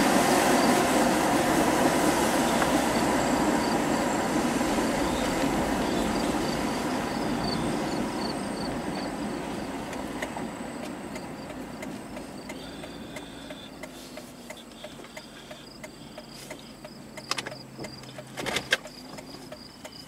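Vehicle road and wind noise, loud at first and fading steadily as the vehicle slows to a stop, with insects chirping in quick, even pulses throughout. A few sharp clicks near the end.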